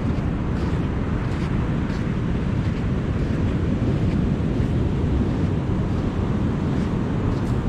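Wind buffeting the microphone in a steady low rumble, with surf washing in behind it. Faint soft footsteps on sand come about once or twice a second.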